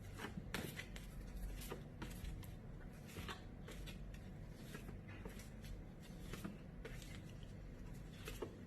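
Quiet room tone with a low hum and faint, irregular small clicks and rustles scattered throughout.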